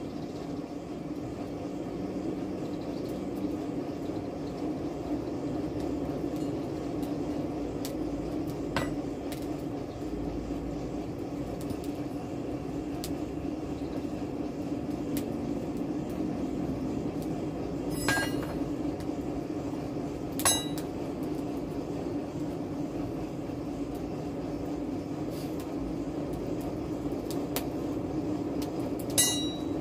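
Steady hum of the charcoal forge's air blast. A few sharp metal clinks, the loudest about two-thirds of the way in and near the end, come from the steel bearing ring and tongs knocking together in the fire.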